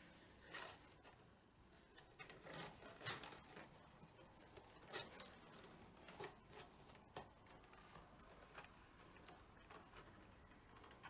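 Faint, irregular rustling and rubbing as the tabla's badhi strap is pulled and worked through the drum's skin and ring, with a few short rasps.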